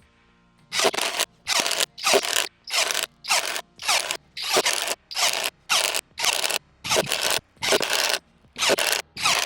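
Dagmara DTD173 cordless impact driver hammering in short bursts, about two a second, with a brief pause before the first.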